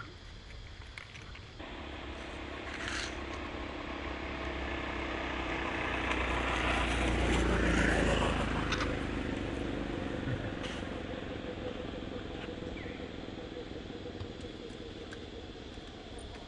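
A motor vehicle passing by: its engine and tyres build up over several seconds, are loudest about halfway through with a low rumble and a falling pitch, then die away slowly.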